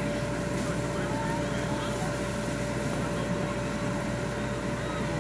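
Steady outdoor background noise, heaviest in the low range, with a steady high hum and faint distant voices.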